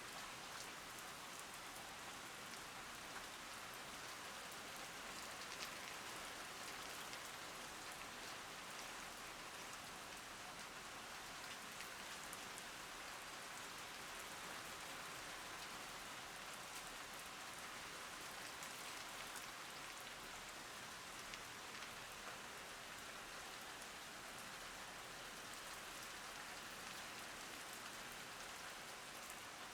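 Rain falling steadily: an even hiss of drops with scattered individual drop ticks, unchanging throughout.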